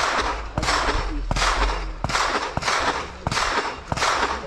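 Gunshots in a steady string, about seven in four seconds, each ringing out with a short echo.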